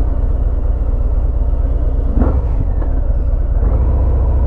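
Harley-Davidson Fat Bob's Milwaukee-Eight 107 V-twin running at low road speed, a steady low pulsing rumble. A brief sharper sound cuts in a little past halfway, and the engine note grows fuller near the end as the bike rounds a corner.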